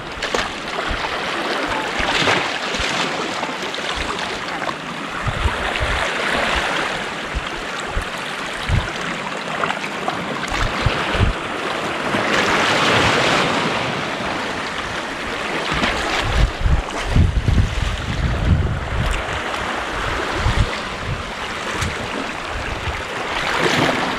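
Small sea waves washing over a rocky shoreline, swelling and easing, with gusts of wind buffeting the microphone about two-thirds of the way through.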